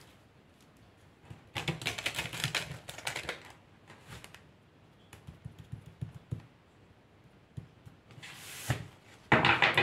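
A deck of tarot cards being shuffled by hand, a dense run of quick papery card clicks about a second and a half in. Scattered light taps and flicks of cards follow, and there is a short rush of shuffling near the end.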